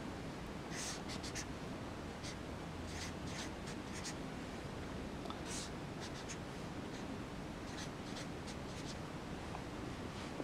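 Felt-tip marker writing on a whiteboard: short, faint strokes scattered through, with a low steady hiss beneath.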